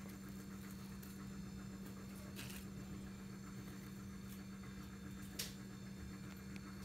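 Bark and dry leaf litter being shifted by hand in a clear plastic tub: faint rustling with a couple of light clicks, one sharper about two thirds through, over a steady low hum.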